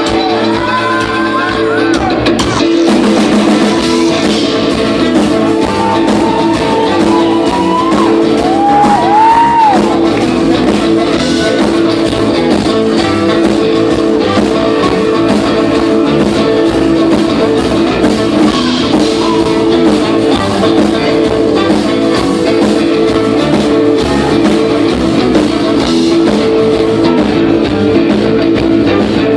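Live rock music from a band on stage, led by guitar, loud and continuous, heard in a large hall. A voice sings gliding phrases during the first ten seconds or so.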